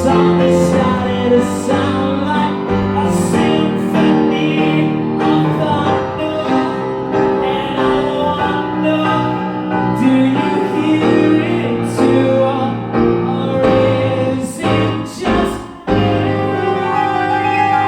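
Live rock band music, the song playing on with no clear sung words, and a brief dip in loudness near the end.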